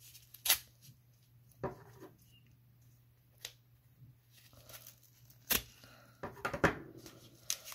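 Scissors snipping through a small paper mailer envelope: a handful of sharp, separate cuts spaced out over several seconds, with paper rustling and tearing as the envelope is worked open.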